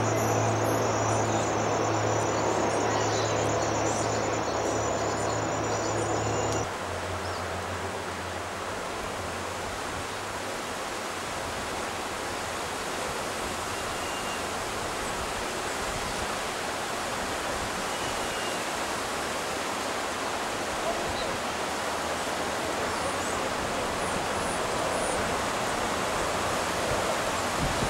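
Steady rushing noise, with a few faint, brief high bird chirps. For the first six or so seconds a steady high buzz and a low hum sit over it, and both cut off abruptly.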